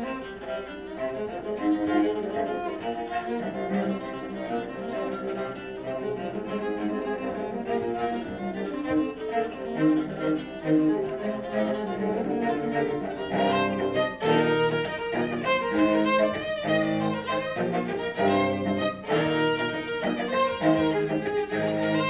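Viola playing a continuous run of bowed notes. About halfway through, a series of sharp taps comes in alongside the playing.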